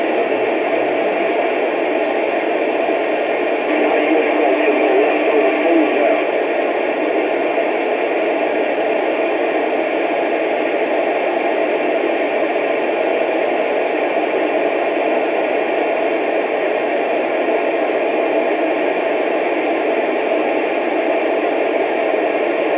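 Steady static hiss from a two-way radio's speaker with no one talking, a little louder for a couple of seconds about four seconds in.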